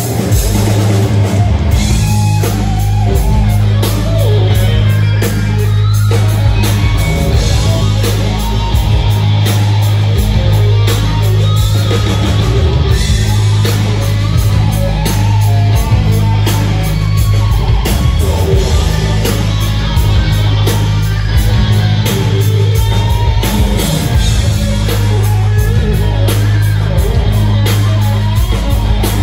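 A live hard rock band playing loud and steady, with distorted electric guitars, bass and a pounding drum kit.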